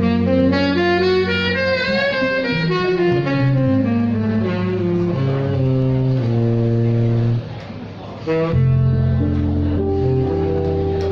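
Live jazz band: a saxophone plays a melody with quick rising and falling runs over bass and guitar. The music briefly drops away about seven and a half seconds in, then the saxophone and bass come back in.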